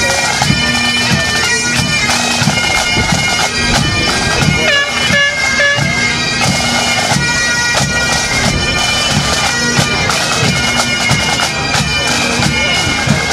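Highland bagpipes playing a tune, the chanter melody running over a steady drone.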